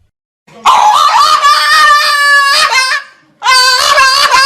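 Two long, loud screams, each steady in pitch and about two seconds long, with a short break between them.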